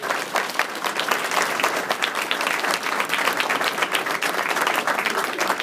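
A roomful of people applauding with dense, steady clapping.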